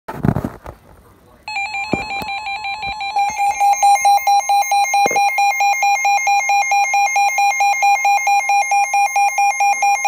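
Midland weather radio sounding its flood warning alert: a loud warbling alarm that pulses about five times a second over a steady tone near 1 kHz, the broadcast warning tone. It starts about a second and a half in and gets louder a couple of seconds later. A handling thump comes at the very start, and a couple of light clicks sound during the alarm.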